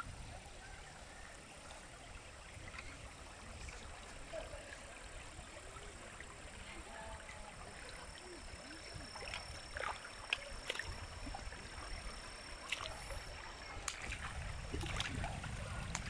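A shallow stream runs over rocks as a steady rush of water. A few faint knocks come through in the second half, and a thin high whine holds for several seconds in the middle.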